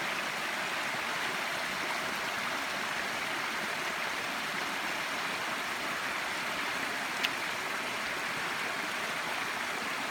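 Water gushing steadily out of shotgun holes in an above-ground swimming pool as the pool drains. There is a single short click about seven seconds in.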